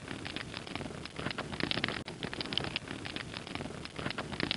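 Crackling fire sound effect: a steady hiss with many short, sharp pops and crackles.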